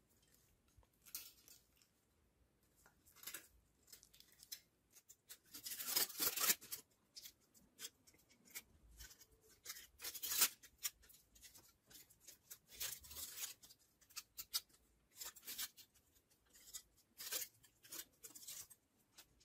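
Aluminium foil crinkling and crackling in irregular bursts as it is wrapped by hand around a paper-insulated wire coil, loudest about six seconds in and again near ten seconds.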